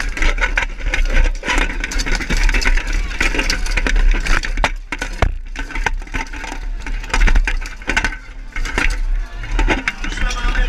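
Steel plate armour clattering and weapons striking helmets, armour and shields in a close-quarters armoured melee, a dense run of sharp knocks heard from a helmet-mounted action camera over a constant low rumble.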